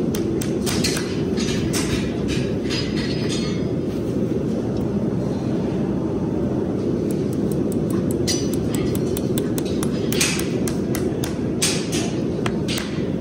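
Farrier's driving hammer tapping horseshoe nails into a horse's hoof through a steel toe extension shoe: runs of quick, sharp metallic taps, some ringing, in two bursts with a pause between. A steady low rumble sits underneath and is the loudest sound.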